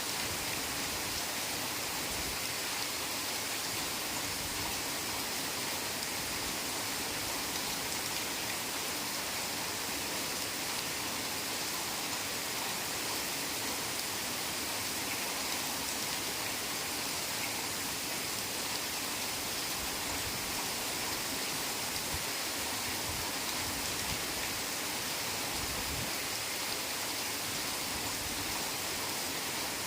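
Heavy rain falling steadily on forest foliage, an even hiss of rain with no let-up.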